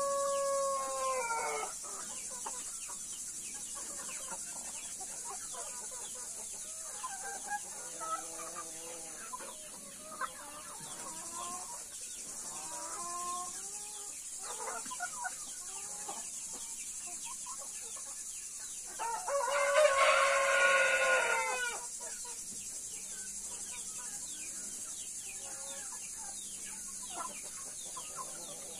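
White-faced Black Spanish chickens clucking softly while they feed, with a rooster crowing once, loudly, about two-thirds of the way through, and the end of another crow right at the start. A steady high hiss runs underneath.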